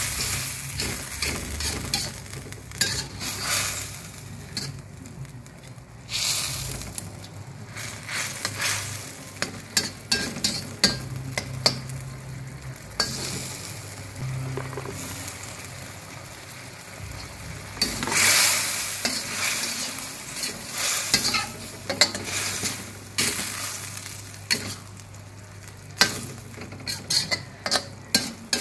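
Slotted metal spatula scraping and clinking against a stainless steel wok while stirring a sizzling saucy stir-fry, with many sharp clicks and a hiss that swells in bursts as the sauce is moved, loudest around six seconds in and again near the middle.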